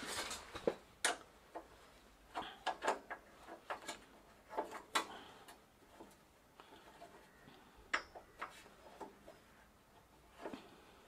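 Irregular small metallic clicks, taps and short scrapes as a hand works at a bicycle's kickstand mount and its bolt, with the bike upside down. Some clicks come in quick clusters, about two and a half and five seconds in.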